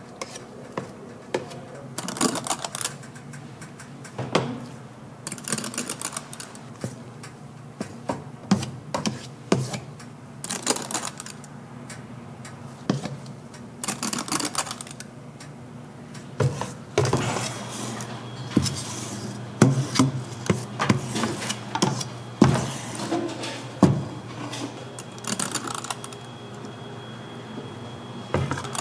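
Kitchen utensils clicking and clattering against bowls and pans during soufflé pancake making, with short noisy bursts every few seconds over a steady low hum. A thin high tone comes in a little past the middle.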